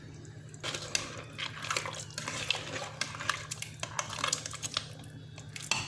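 Pot of seafood paella liquid simmering on the stove, an irregular bubbling crackle with small clicks, over a steady low hum.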